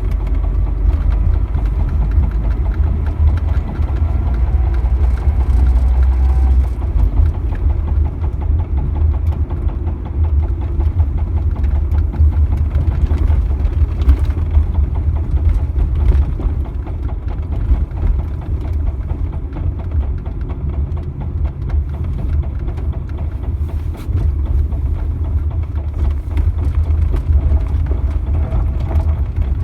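GAZ-3110 Volga on the move, with a steady low rumble and a rhythmic knocking from around the right rear wheel.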